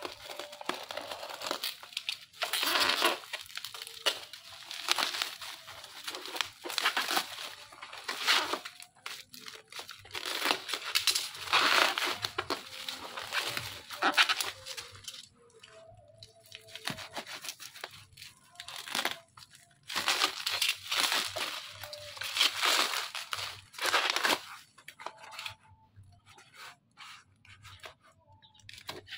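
Bubble wrap crinkling and tearing as a parcel is cut and peeled open with a utility knife, in repeated rustling bursts. Near the end, quieter scrapes and clicks as the knife blade cuts into the cardboard box.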